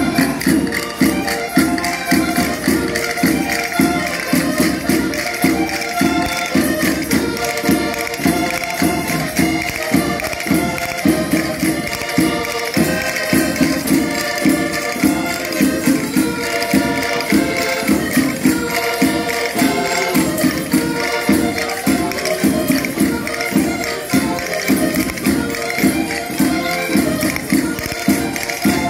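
A Portuguese folk (rusga) group playing live: a diatonic button accordion carries the tune over a steady, brisk beat of hand percussion and clapping.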